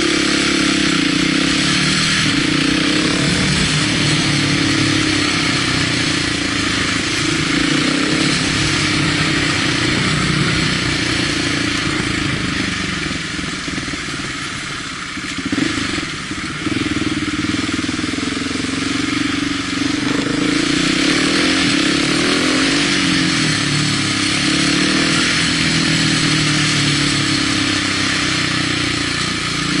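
Motorcycle engine heard from the rider's seat, its revs rising and falling as the bike speeds up and slows, under a steady rush of wind noise. It drops briefly about halfway through, then picks up again.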